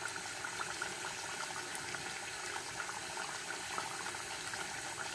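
Beef cooking in butter and olive oil in a stainless steel saucepan, giving a steady sizzling and bubbling with fine crackles.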